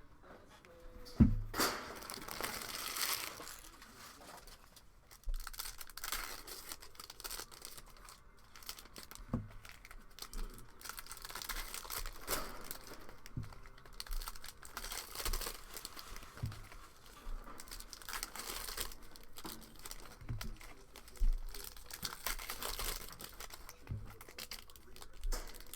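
Plastic wrappers of trading card packs crinkling and being torn open, in uneven stretches, with a few light knocks against a table. The sharpest knock comes about a second in.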